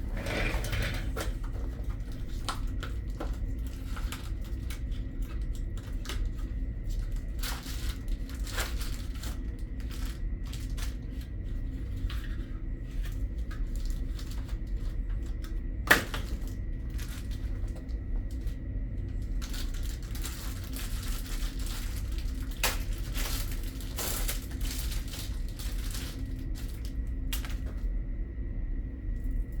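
Scattered clicks, clinks and rustles of metal parts and tools being handled during chain work, over a steady low hum, with one sharp click about halfway through.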